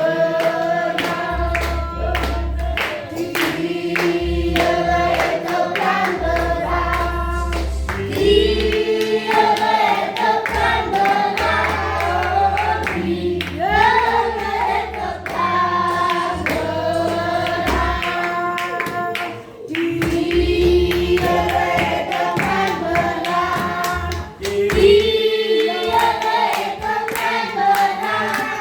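Church congregation or choir singing a gospel song together, with rhythmic hand clapping and low bass notes underneath.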